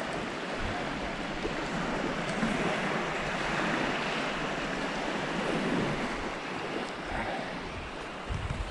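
Small Baltic Sea waves washing steadily onto a pebbly shore, with wind buffeting the microphone, strongest near the end.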